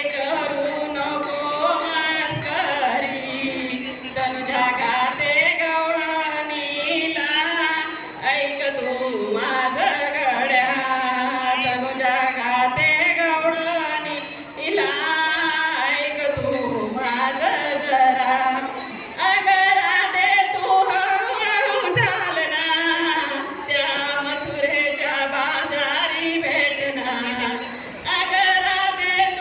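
Singing of a Marathi gavlan, a devotional folk song about Krishna, in a woman's voice over a steady rhythmic percussion beat.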